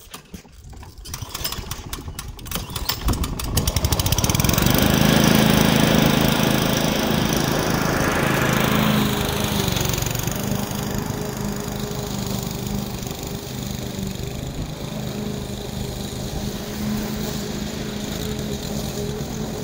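Petrol walk-behind rotary lawn mower starting up, its engine catching about three seconds in and then running steadily while cutting grass. It grows quieter after about ten seconds as it moves away.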